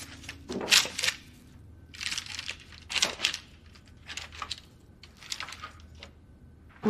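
A knife sawing through the crisp puff-pastry crust of a beef Wellington: a series of crunchy, crackling strokes as the pastry breaks.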